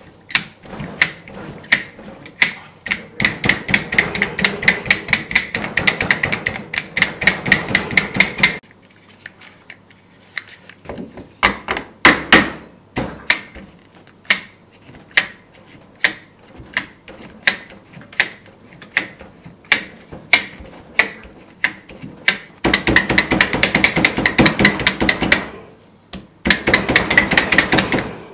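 Bladed meat tenderiser with 48 steel blades and return springs being pressed down again and again into raw meat on a plastic cutting board: a string of sharp clacks. They come fast and close together at the start and near the end, and slower, about one or two strokes a second, through the middle.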